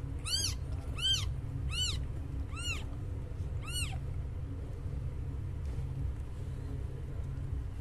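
Newborn kitten crying: five short, high-pitched mews, each rising and falling in pitch, about one every 0.7 seconds, ending about four seconds in. A steady low rumble runs underneath.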